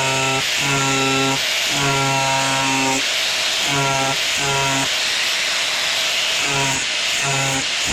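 Pneumatic body saw cutting through a car door's sheet-metal skin: a steady hiss of air with a buzzing stroke tone that cuts in and out in short stretches as the blade works along the cut.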